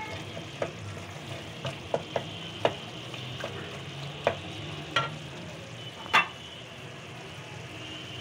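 Minced meat (keema) with tomatoes sizzling steadily as it is fried in a metal pot. A wooden spoon stirs it, knocking against the pot in about a dozen sharp taps, the loudest about six seconds in.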